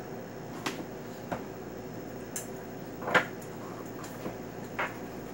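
A cardboard shipping box being handled and cut open: a few sharp clicks and knocks, the loudest about three seconds in, over a steady background hum.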